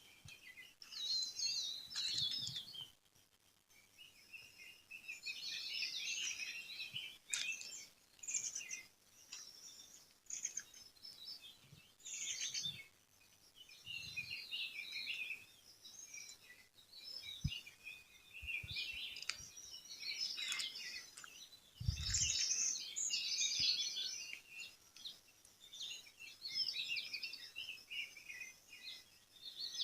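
Small birds chirping, many rapid high chirps overlapping in bursts of a second or two, separated by short lulls.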